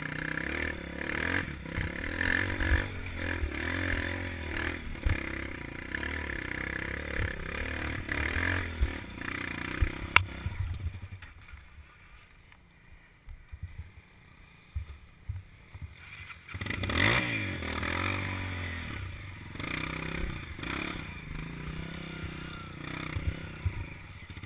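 Dirt-bike engine running, then going quiet about ten seconds in. A few seconds of scattered knocks and scrapes follow, then the engine starts again and revs up.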